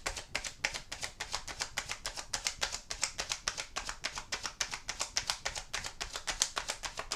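A tarot deck shuffled by hand, cards slapping and riffling against each other in a rapid, even run of crisp clicks, several a second.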